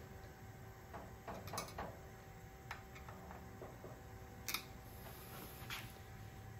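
Scattered light clicks and taps of a hand tool on the bolts of a CNC router's mount as they are tightened snug, with a sharper click about four and a half seconds in.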